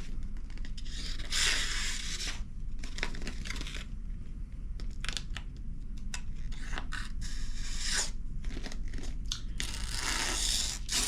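Fixed-blade knife cutting through paper in a sharpness test, the paper tearing and crinkling: two longer cuts, about a second in and near the end, with short rustles and snips between.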